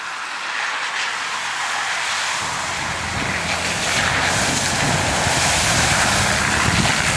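Land Rover Discovery driving through muddy water towards the listener: its engine running and its tyres splashing through the puddles, getting steadily louder as it comes closer.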